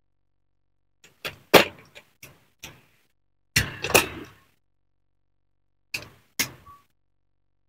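Small plastic building-brick pieces clicking and clacking as they are handled and pressed together. There is a string of sharp clicks over the first few seconds, a louder burst of clatter about three and a half seconds in, and two more clicks near the end.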